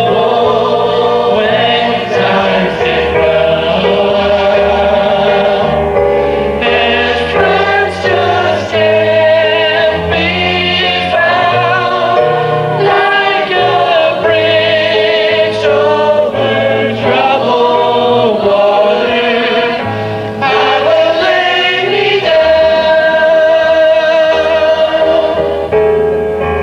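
A robed choir singing on stage, voices held in long sustained lines over steady low accompanying notes.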